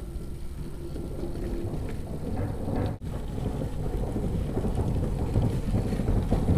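Wind buffeting the microphone in a snowstorm: a rough, low rumbling noise that grows louder, broken by a short cut about three seconds in.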